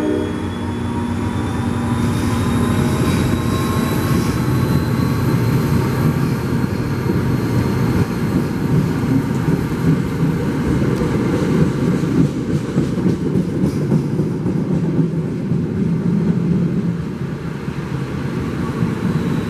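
NJ Transit push-pull commuter train hauled by a GP40PH-2B diesel locomotive going by, with a steady rumble of engine and wheels on the rails and a thin whine slowly rising over the first few seconds. The tail of a horn blast cuts off right at the start.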